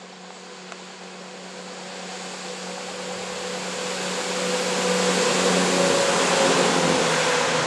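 Diesel multiple unit train passing beneath, its engine drone and wheel noise growing steadily louder as it comes close, with a steady low hum. It is loudest as the train runs under, about five to seven seconds in.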